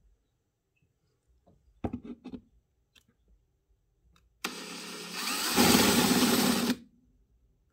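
Cordless drill boring a larger hole up through the underside of a wooden kitchen cabinet, enlarging a small pilot hole and shedding sawdust. It runs steadily, grows much louder about halfway through its run as the bit cuts, and stops abruptly after about two seconds. A few short knocks come earlier.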